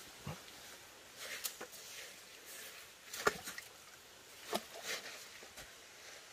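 Irregular knocks and clicks of handling noise at an uneven pace, the sharpest about three seconds in, over a faint steady background.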